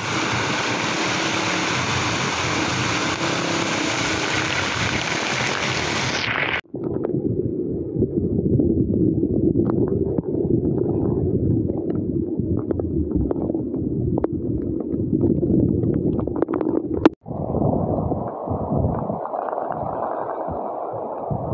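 Floodwater rushing across a road in heavy rain, a steady noisy rush. It is bright and hissing for about the first six seconds, then abruptly duller and muffled with scattered crackles, and changes abruptly again near the end.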